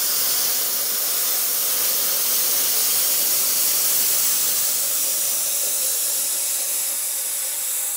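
Cutting torch hissing steadily as it cuts through steel pipe along a template.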